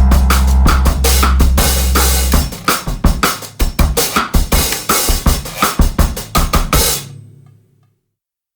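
Background music with a driving drum-kit beat and heavy bass. The bass drops out about two and a half seconds in, and the music fades to silence near the end.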